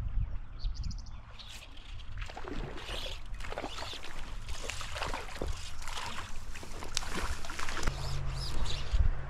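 Water splashing and sloshing in a shallow stream in a run of short, irregular splashes, over a low wind rumble on the microphone.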